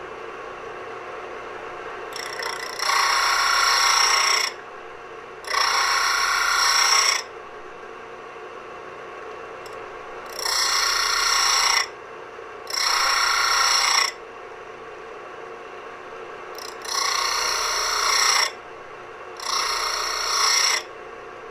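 Harbor Freight 6-inch disc sander running steadily while the point of a twist drill is ground against the abrasive disc to sharpen it. The drill is pressed on in six short passes of about a second and a half each, in three pairs. Each pass brings a loud grinding that stands well above the motor's hum.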